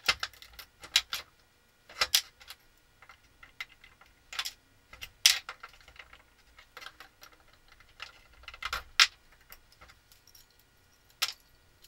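Small parts of a paint sprayer's pump being handled and taken apart, with irregular sharp clicks and clinks that are loudest about five and nine seconds in.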